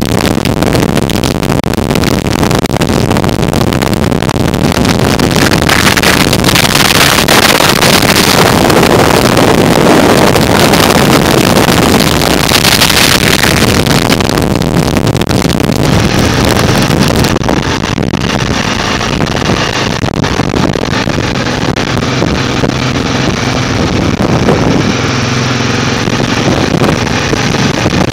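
Motorcycle running at road speed with heavy wind rush on the microphone. A little past halfway the wind noise eases and the engine's steady note comes through more clearly.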